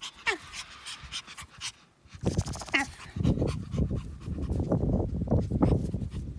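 Petit Brabançon puppy panting while playing, with two short falling whimpers early on. The panting turns louder and heavier about two seconds in.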